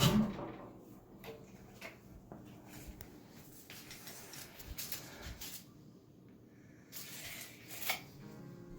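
Quiet handling noises: a few scattered light knocks, and a short rustling hiss near the end.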